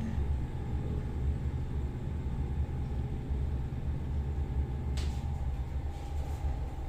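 Steady low rumble and faint hum inside an elevator car, with a single sharp click about five seconds in.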